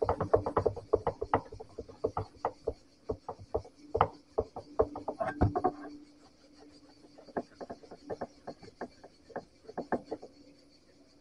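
Quick, irregular knocks and taps on a wooden surface, coming in bursts, with a short lull about halfway through.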